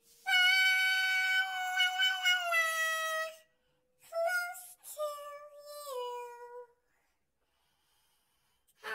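Small dog howling along with a person's hum: one long, high, held howl of about three seconds, then two shorter howls that slide down in pitch. A faint steady hummed note runs under the first half.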